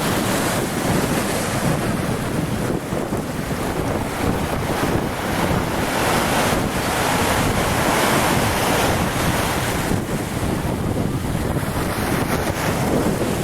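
Steady rushing of wind buffeting the microphone, with a low rumble underneath.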